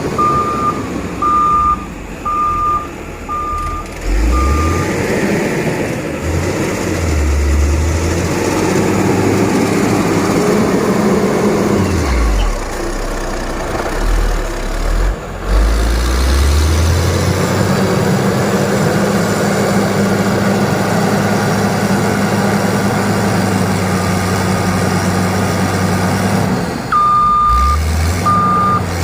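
Heavy road-construction machine with a diesel engine running under load. A reversing alarm beeps steadily for the first few seconds, stops, and starts again near the end. A steady low hum holds through the middle.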